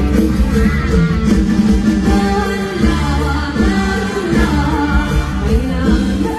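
A live Thai mor lam stage band playing loudly: a singer over electric guitar and a drum kit.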